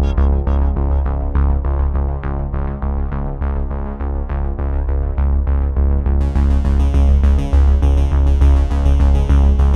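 Electronic background music: synthesizer with a heavy bass and a steady pulse of notes, a bright high layer joining about six seconds in.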